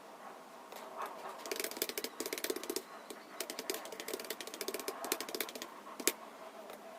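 Computer keyboard typing: runs of rapid keystrokes start about a second in and break briefly around the middle. A single louder keystroke comes near the end.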